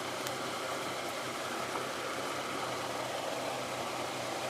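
A steady mechanical hum under an even hiss, unchanging throughout.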